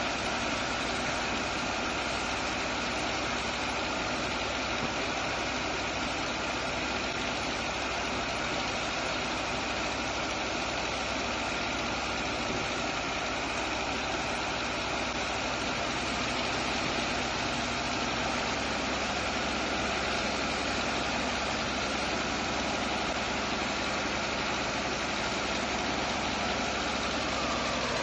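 Sand-unloading pump engine running steadily, with the rush of a high-pressure water jet from a hose pouring onto wet sand in the barge's hold.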